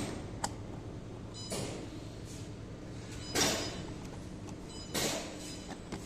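Pneumatic automatic cartoning machine running, its motor humming steadily under bursts of air hiss from the pneumatic cylinders about every one and a half to two seconds, with an occasional sharp click.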